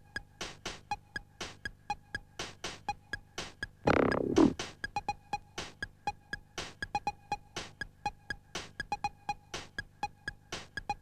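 Electronic synthesizer film score: a steady, quick ticking pulse of drum-machine-like clicks with a short pitched blip on each beat. About four seconds in, a loud synth swoop sweeps downward for half a second.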